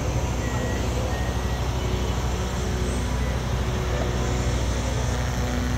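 Steady low engine hum from an idling motor vehicle, under the general noise of a crowd walking in a street.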